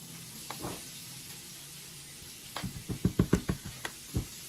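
Cooking utensil knocking against a frying pan, a quick run of about ten taps lasting under two seconds in the second half, over a faint steady sizzle of steak frying in oil.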